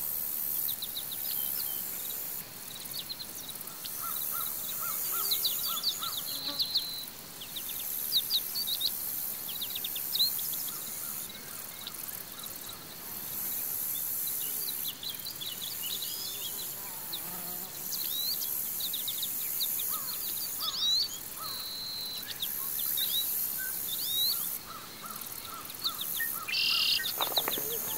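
Forest ambience: many small birds chirping in scattered bursts over a steady high-pitched insect drone, with a few short runs of evenly repeated lower notes.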